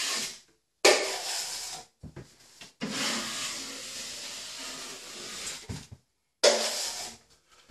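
A 12-inch flat drywall knife scraping thinned joint compound across a textured drywall wall in several long strokes, each starting abruptly, with short silent gaps between them.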